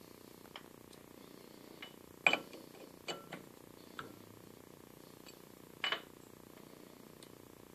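Short metallic clicks and knocks from a steel shaft and dial-indicator setup being handled on a lathe bed: the loudest about two seconds in, a couple of lighter ones around three seconds, one at four, and another sharp one near six seconds. A faint steady hum lies underneath.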